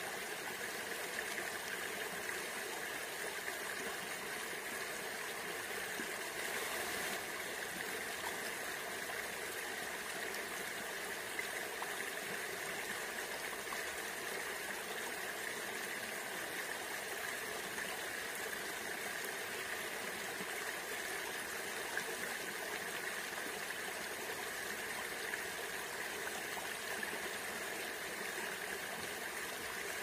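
Shallow river flowing and rippling over pebbles and stones, a steady babbling rush of water.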